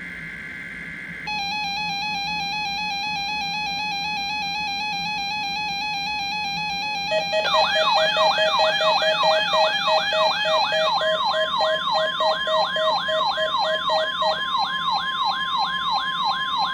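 NOAA Weather Radio weekly-test alert tones. A brief burst of SAME data tones ends about a second in, followed by a steady electronic alarm tone. About seven seconds in it gets louder: a fast beeping and a rapidly repeating rising siren sweep join, over the steady 1050 Hz warning alarm tone, which signals alarm-equipped weather radios to sound.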